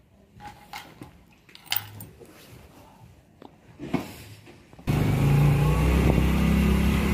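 A few faint clicks and knocks, then, about five seconds in, a motorcycle engine running steadily with road and wind noise as the bike rides off.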